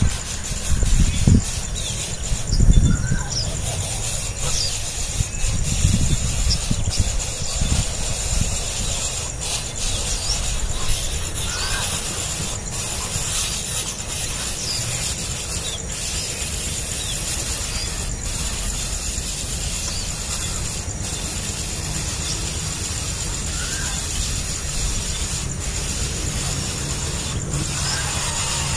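Faint, scattered high cheeps of a hungry nestling bird begging for food, over a steady low rumble and hiss.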